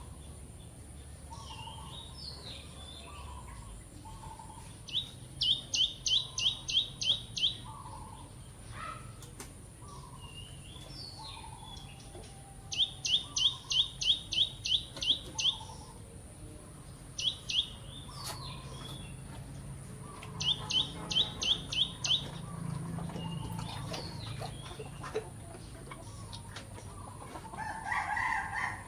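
Birds calling. One bird gives four runs of about eight quick, high, rising notes each, and softer, lower short calls come in between. A louder call sounds near the end.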